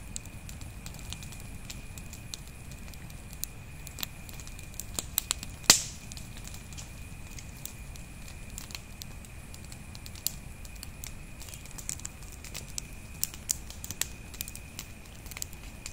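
Campfire burning: wood crackling with scattered pops over a low steady rumble, with one sharp, loud pop about six seconds in.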